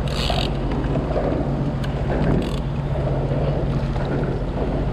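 Jet ski engine running at low speed with a steady low hum, under wind on the microphone. Two brief hisses come near the start and about two and a half seconds in.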